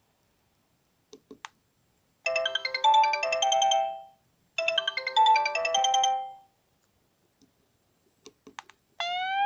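Sony Ericsson J300 mobile phone playing a polyphonic ringtone: a short synthesized melody phrase of about two seconds, played twice with a brief gap between. A few short clicks come before and after the phrases. Near the end a different ringtone starts, made of rising gliding tones.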